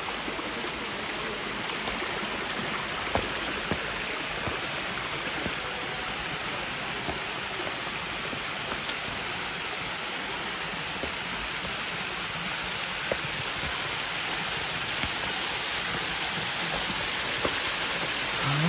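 Small waterfall: shallow water running and splashing down rock slabs in a steady rushing hiss, with a few faint clicks.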